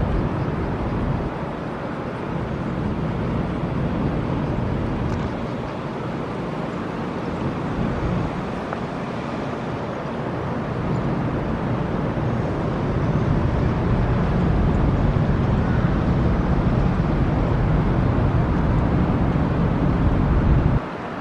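Low, steady rumble of a 1990-built Ro-Ro passenger ferry's engines as it pulls away from the quay, heard across harbour water. It grows louder about two-thirds of the way through and drops off sharply just before the end.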